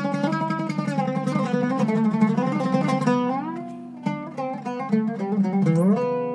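Zeryab Iraqi-style oud with a cedar top, a maple-and-mahogany back and Pyramid strings, being played solo. It opens with a fast run of rapidly repeated plucked notes, grows quieter about four seconds in, then plays single notes that slide in pitch.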